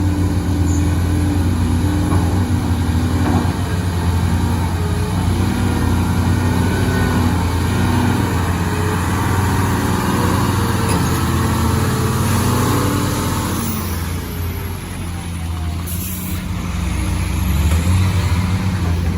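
Heavy diesel engine running, its pitch shifting in the middle and briefly quieter about three-quarters of the way in before picking up again near the end.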